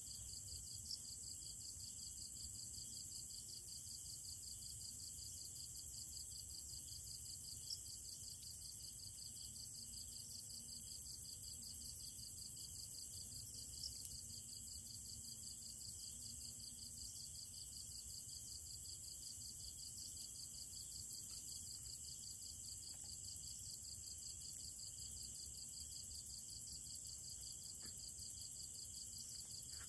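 Night-time insect chorus in the forest: a steady, evenly pulsing trill with a continuous high, thin hiss above it, faint and unchanging throughout.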